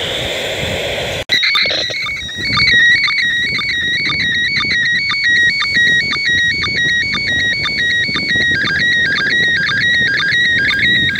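Slow-scan TV (SSTV) image signal from the International Space Station, played through a handheld radio's speaker. After about a second of rushing noise, the sound cuts to a warbling tone that hops rapidly between pitches, broken by short regular pulses about twice a second. It is a picture being sent line by line, which a phone app is decoding into an image.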